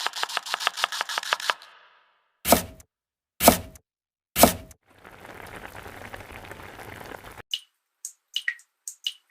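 Kitchen sound effects for egg cooking: a fast, even run of clicks, then three loud knocks about a second apart, a hiss lasting a couple of seconds, and a few short high blips near the end.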